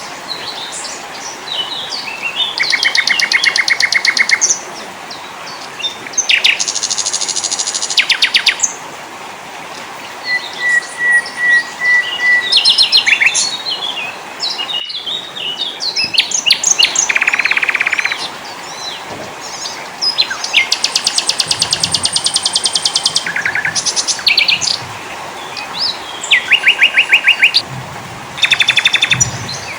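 Several small songbirds singing one after another and at times overlapping: fast trills of evenly repeated notes and quick high chirps and whistles.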